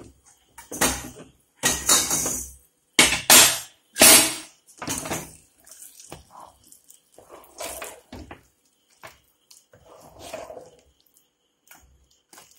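Long steel spoon mixing mashed tapioca in an aluminium pressure cooker, clattering and scraping against the pot. There are several loud strokes about a second apart in the first half, then softer mixing sounds.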